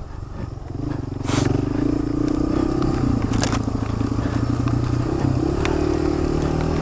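Dual-sport motorcycle engine running at steady throttle on a trail, picking up about a second in, with a few sharp clicks over it.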